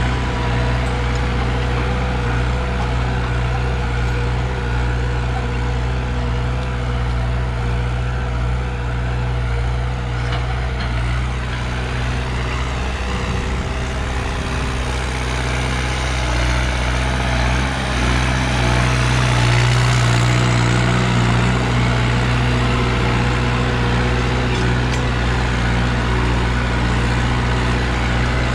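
New Holland 5630 4WD tractor's diesel engine running steadily under load at about 1800 rpm while pulling a disc harrow. It grows louder about two-thirds of the way in as the tractor comes near.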